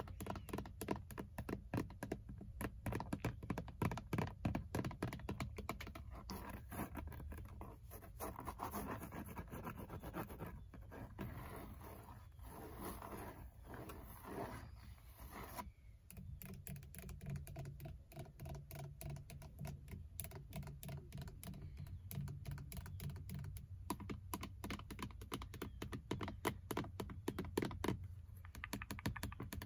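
Long fingernails tapping and scratching on the textured airbag cover of a Ford Mustang's steering wheel: a rapid run of light taps and scratches.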